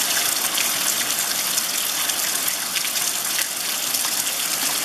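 Heavy rain pouring down on a wet dirt road and grass: a dense, even hiss that holds steady throughout.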